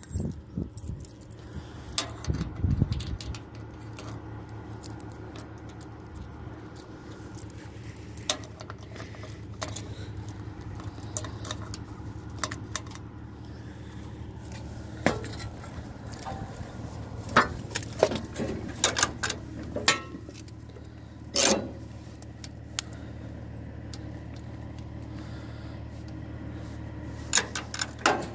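Keys on a ring hanging from the ignition of a 1939 Ford 9N tractor jangle and click against the dash, with sharp clinks clustered about two thirds of the way through and again near the end. Under them is a steady low rumble, taken here for the tractor's four-cylinder engine running.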